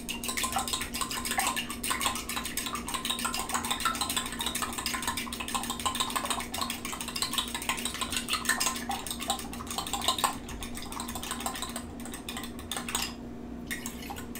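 Fork beating eggs and milk in a small glass bowl: rapid clinking and tapping of the fork against the glass, lighter after about ten seconds with a short pause near the end.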